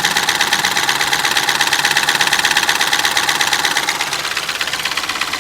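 Mahindra TUV300's three-cylinder diesel engine idling cold with a fast, even tapping knock, which eases slightly about four seconds in. The knock comes with cold starts and was not cured by the high-pressure fuel pump that has already been replaced.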